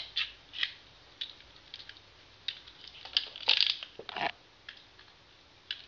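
Scattered light clicks and knocks of small plastic Beyblade parts and launcher being handled, with a louder cluster of clatter about three and a half to four seconds in.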